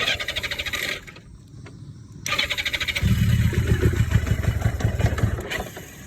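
1982 Yamaha XJ750 inline-four motorcycle being cranked on its electric starter: a short burst of cranking, a pause, then more cranking until the engine catches and runs for about two and a half seconds before cutting out. It starts only because the shift pedal is held in its middle position, which gets around a fault in the sidestand/neutral safety interlock.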